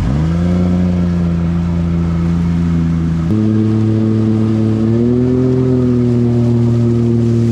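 Outboard motor on an inflatable raft revving up as the boat pulls away from the bank, then running steadily under way. About three seconds in its pitch steps up and holds at the higher speed, with a slight rise and fall a couple of seconds later.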